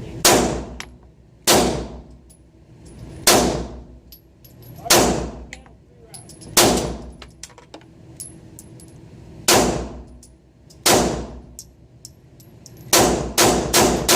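Ruger SR9 9mm pistol firing: seven single shots spaced one to three seconds apart, then a quick string of shots at about three a second near the end.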